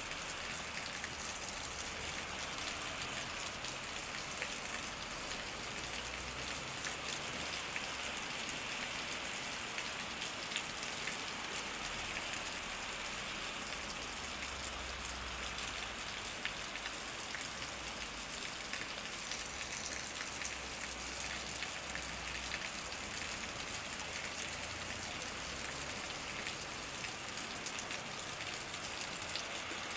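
Heavy rain falling steadily, a dense even hiss of drops with fine patter throughout. A faint low rumble comes and goes underneath.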